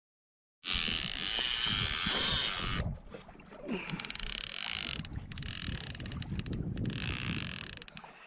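Fishing reel's clicker ratcheting rapidly as a hooked fish pulls line off against the drag, starting about half a second in with a couple of brief lulls.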